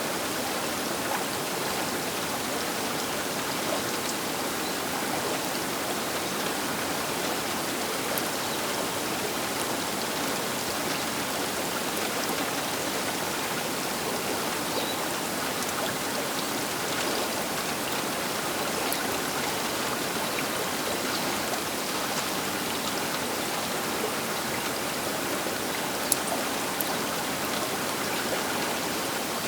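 Baker River flowing: a steady, even rush of river water, with a single sharp tick about 26 seconds in.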